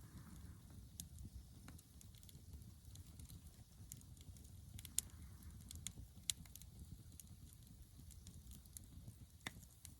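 Faint wood campfire crackling: scattered sharp pops over a low steady rumble, the loudest pops about five and six seconds in.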